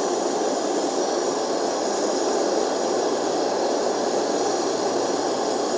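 Homemade blast furnace running at full heat with a steady, even rush of flame and air, flames shooting out of it; the gold in its crucible has reached liquefaction.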